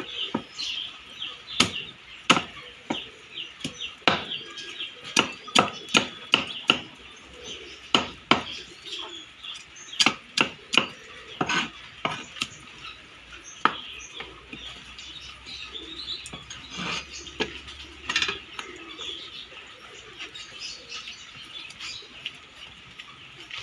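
Cleaver scraping the scales off a whole barracuda on a wooden chopping block: irregular sharp scrapes and knocks in quick runs, busiest in the first half.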